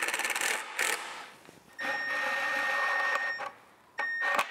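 Milwaukee cordless impact driver driving pocket screws into wood trim, in short runs. It starts with rapid hammering, gives a brief burst just before a second in, then runs with a steady whine for about a second and a half from about two seconds in, and ends with a short burst near the end.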